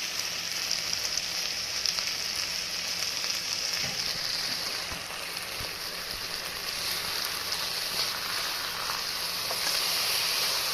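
Begun posto, eggplant in poppy-seed paste, sizzling steadily in a pan on the stove near the end of cooking.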